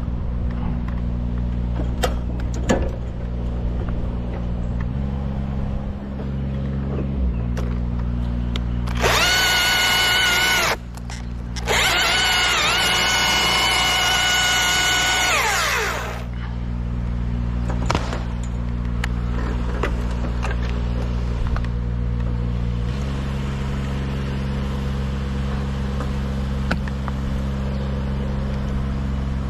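An engine idling steadily underneath, while a high-pitched power tool runs at full speed in two spells of a few seconds, the second ending with the pitch sliding down as it winds down.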